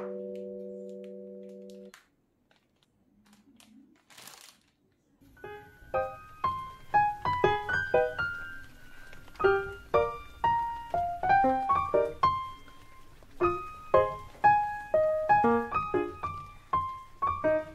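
Background music: a held chord fades out, and after a short pause a light piano melody of single struck notes begins about five seconds in.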